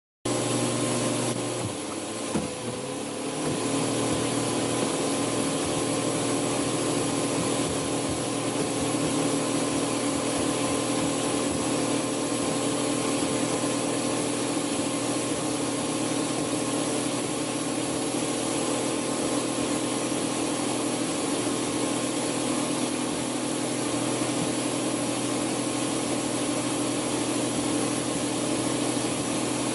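Power-tool motor of a homemade chainsaw-blade grinder box running at steady high speed, its blade shredding foam Nerf footballs. The sound starts suddenly just after the start, dips with a knock at about two seconds in, then holds an even whine.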